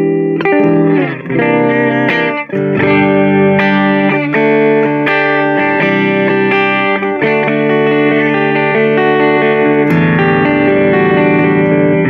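Grote ST-style HSS electric guitar being played through an amplifier: strummed chords and picked notes that ring out between strokes, with a new strike every second or few.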